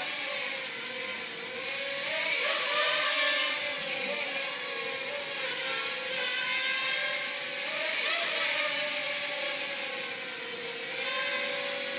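Peakmodel mini quadcopter flying, its four small motors and propellers whining, the pitch drifting up and down as the throttle changes.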